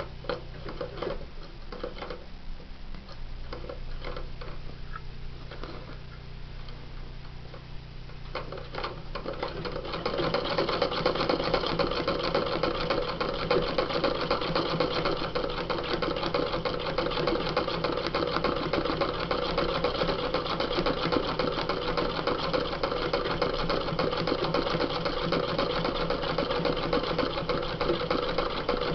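Sewing machine stitching free-motion embroidery through tissue paper on denim held in a hoop. The first several seconds hold only scattered clicks, then about ten seconds in the machine runs steadily and fast and gets louder.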